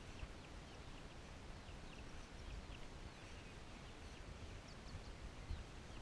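Chicks peeping: many short, high peeps in quick succession, over a low rumble.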